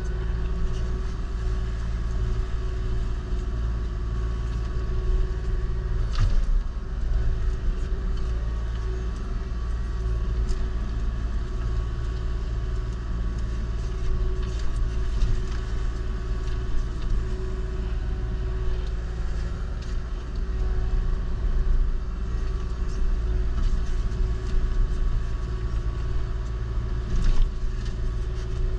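Kubota KX040-4 mini excavator's diesel engine running steadily under load while it drives an Indeco forestry mulcher, heard from inside the cab. A couple of sharp knocks cut through, about six seconds in and near the end.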